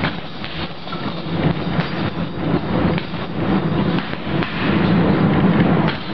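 Boxing gloves striking a heavy punching bag in a rapid run of thuds, over a dense rumbling clatter.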